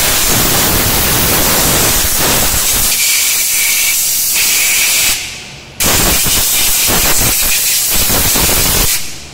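Pressure washer jet hissing steadily as it blasts grime off a pickup's rear leaf spring pack. It cuts out about five seconds in, starts again half a second later, and stops near the end.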